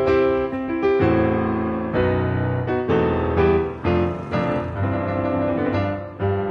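Background piano music, with a new chord struck about once a second.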